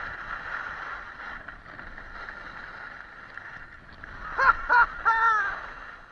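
Skis sliding and scraping over packed snow during a downhill run, with wind rushing over the helmet camera, easing off towards the end. About four and a half seconds in, a person calls out three short times.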